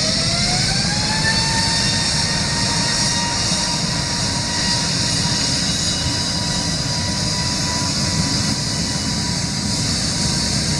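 Airbus A320-family airliner's twin turbofan engines spooling up to take-off power. A whining tone rises in pitch over about the first second, then holds steady over a loud rushing hiss and low rumble.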